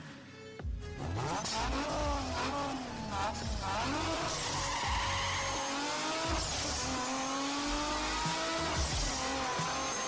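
Car engines revving, several tones gliding up and down in pitch and overlapping, like racing cars.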